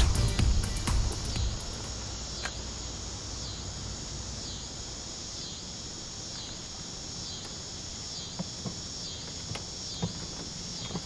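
Insects calling in a steady pulsing chorus, about one and a half high-pitched pulses a second, with a few faint clicks.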